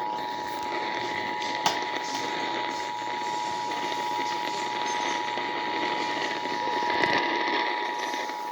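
Emergency Alert System two-tone attention signal: two tones sounding together, held steady without a break, over a background hiss, with a single click about a second and a half in.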